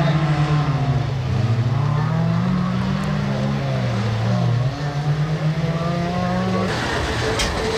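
Suzuki Jimny off-road race car's engine revving hard under load on a dirt climb, its pitch rising and falling again and again with throttle and gear changes. Near the end it gives way to a rougher, noisier sound with a few sharp clicks.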